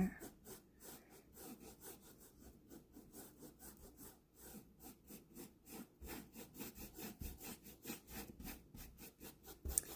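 Paintbrush swishing back and forth on canvas, a faint rapid rhythm of short rubbing strokes, several a second.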